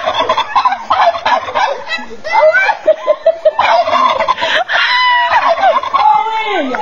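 Poultry calling loudly, with many quick calls one after another.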